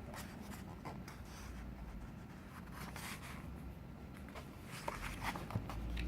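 Faint rustling and handling of a picture book's paper pages as a page is turned, with a few slightly louder rustles near the end.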